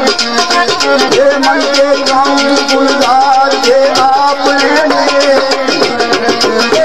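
Instrumental Pothwari folk music: a melody line bending up and down over a fast, steady rattling percussion beat.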